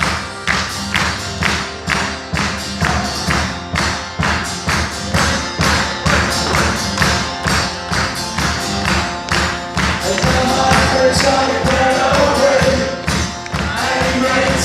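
Live rock music in an instrumental break between sung verses: a steady strummed, percussive beat, joined about ten seconds in by a held melody line.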